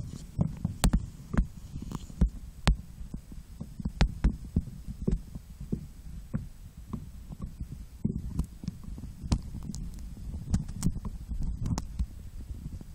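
Muffled underwater rumble heard through a cell phone sealed in a waterproof pouch, with irregular sharp clicks and soft thumps: water moving against the pouch and the pouch being handled.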